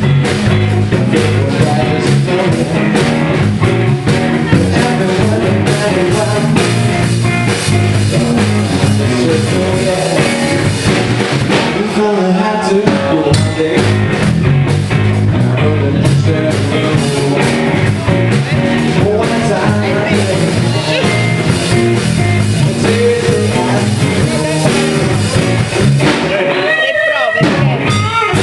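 Live band playing rock music in a small bar, with a singer at the microphone and electric guitar over a strong bass line. The low end drops away briefly near the end.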